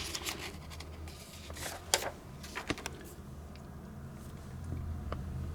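Short scratching and rubbing noises with a few sharp clicks, bunched in the first three seconds, the loudest about two seconds in, over a steady low electrical hum.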